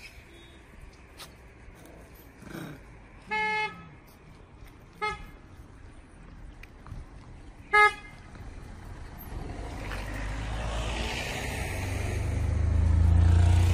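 A road vehicle's horn toots three times, one longer toot and then two short ones, the last the loudest. Then a vehicle approaches and passes close by, its engine rumble and tyre noise building to a peak near the end.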